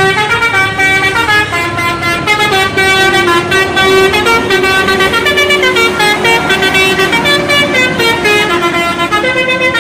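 Indonesian bus telolet horn, a set of electric trumpet horns, playing a fast tune of short notes that step up and down without pause, over a lower tone held much of the time.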